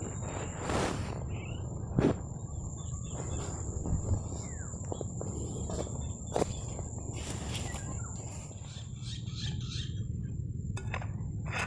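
Steady low wind rumble over the microphone, with a constant thin high whine and scattered short knocks and rustles.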